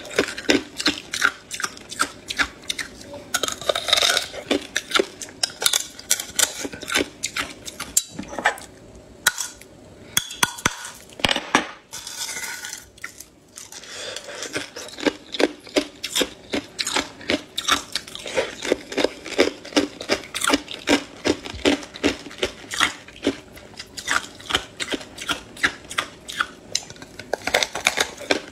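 Hard ice being bitten and chewed, close up: sharp, crackly crunches, two or three a second, easing off briefly around the middle before the crunching picks up again.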